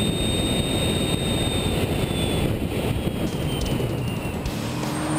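Cummins 5.9L turbo-diesel in a Dodge Ram with a bolt-on twin-turbo kit, running under way with a steady engine and road noise. A thin, high turbo whistle sits over it and drifts slightly in pitch.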